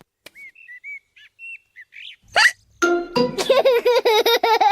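Faint high chirps, then a single cartoon hiccup about halfway through, followed by cartoon characters laughing in quick rhythmic pulses.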